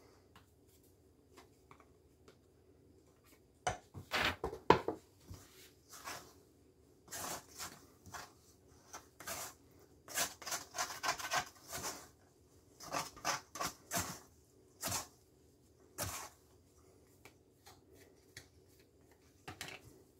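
A spatula and hands scraping and rubbing shaggy sourdough focaccia dough and flour against the sides of a stainless steel mixing bowl, in irregular short bursts that begin a few seconds in.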